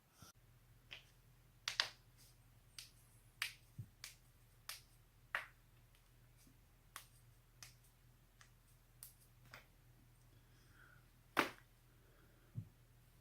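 Human joints cracking: a string of over a dozen sharp pops at irregular intervals, the loudest about two seconds in and near the end.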